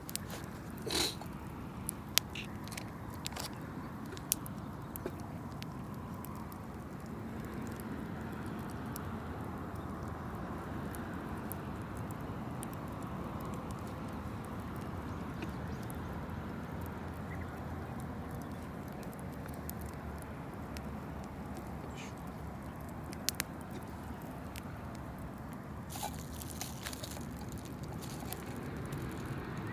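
Campfire crackling: scattered sharp pops and snaps over a steady low hiss, with a brief flurry of pops near the end.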